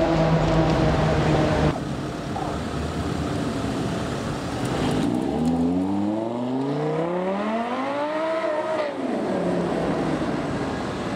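Ferrari 599 GTO's V12 engine. A steady engine note cuts off abruptly about two seconds in; then about five seconds in the engine revs up under acceleration, its pitch climbing for about three seconds before falling away.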